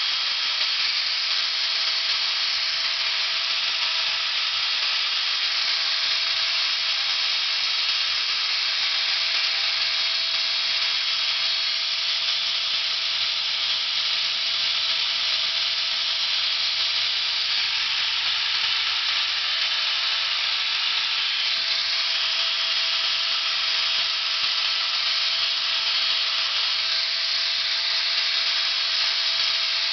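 Steady, even hiss with a faint constant tone underneath, the tone dropping out briefly a little past the middle.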